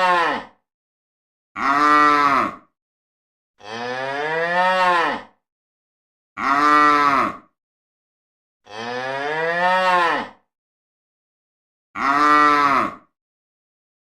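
Cow mooing over and over, a longer moo and a shorter moo taking turns about every two and a half seconds, each swelling up and falling away in pitch.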